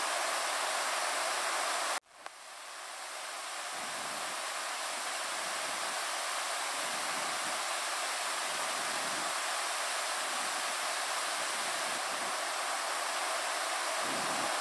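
Steady hiss of room tone in an empty room. It cuts out abruptly about two seconds in, then fades back up to the same even hiss.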